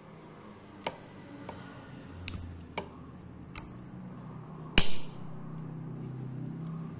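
Green mussel shells clicking and clacking against each other and on a ceramic plate as the meat is pried out by hand. There are five sharp clacks, the loudest just before five seconds in.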